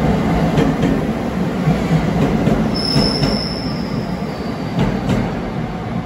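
A 521 series electric multiple unit running past along the platform track, with a steady rumble of wheels on rail and scattered clicks over the rail joints. From about three seconds in, a high, thin wheel squeal sounds for a second or so and sinks slightly in pitch as it fades.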